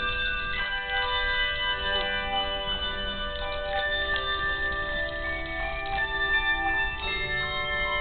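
Handbell choir playing a piece: many tuned handbells struck in overlapping chords, with each note ringing on while new ones enter.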